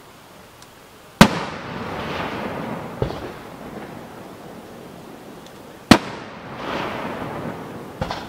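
Aerial firework shells bursting: two loud booms, about a second in and near six seconds, each trailing off in a long echo, with fainter bangs between them.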